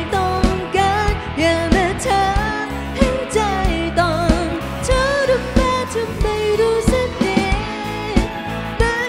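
Live pop-rock band playing: a drum kit keeping a steady beat under electric guitars and keyboard, with a wavering lead melody line on top.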